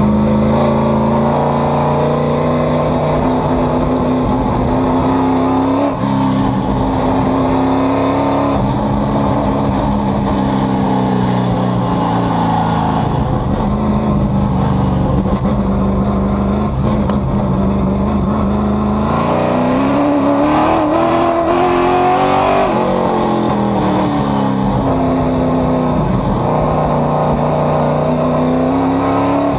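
Race car engine heard from inside the cockpit at speed, its pitch climbing under acceleration and dropping off again several times as the throttle is lifted, with a brief dip about six seconds in and a sharp drop near the end.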